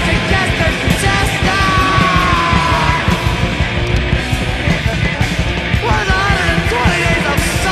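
Loud punk rock song with a yelled vocal over the full band. One long vocal note slides downward about two seconds in, and shorter vocal swoops come near the end.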